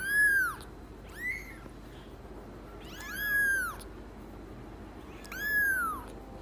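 A cat meowing four times, each call high-pitched and rising then falling in pitch; the second call is shorter and quieter than the others.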